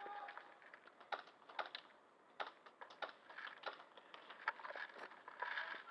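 Faint, irregular sharp clicks and snaps scattered through, a few a second at most, during an airsoft game in progress.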